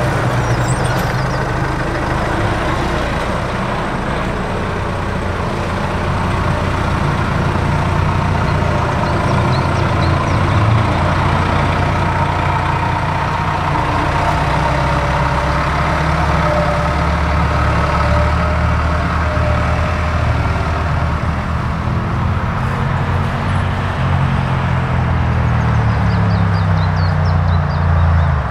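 Farm tractor's diesel engine running steadily, its pitch climbing over the last few seconds as the engine speeds up.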